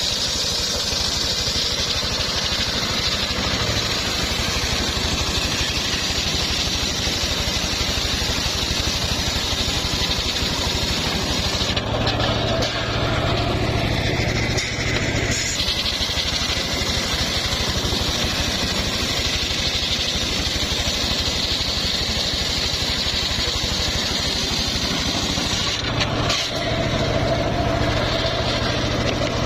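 Home-built circular sawmill running under engine power, its blade sawing through an old, fairly hard mahogany log, with a steady low pulsing throughout. The tone shifts twice, about twelve seconds in and again near the end, as the load on the blade changes.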